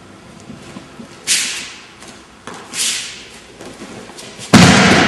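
Two short swishes of movement on tatami mats, then near the end a loud thud and slap as a judoka thrown with uki otoshi lands on the mat.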